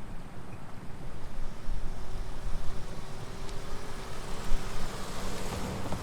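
A road vehicle passing close by, its tyre and engine noise building to the loudest point near the end, with a sharp knock about four and a half seconds in.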